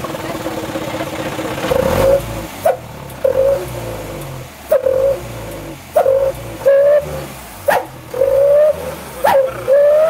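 Truck engine fitted with a 'knalpot srigala' whistle exhaust with an added canister. It idles at first, then from about two seconds in the throttle is blipped repeatedly, and on each blip the exhaust gives a short howling whistle that rises slightly in pitch, about eight times.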